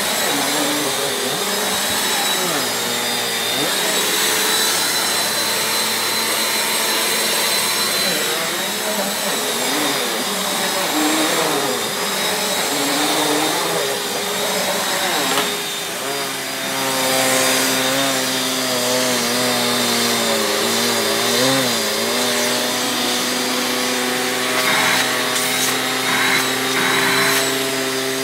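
Bissell PowerForce Compact upright vacuum cleaner running continuously. Its motor hum wavers up and down in pitch through the first half, then settles into a steadier tone about halfway through.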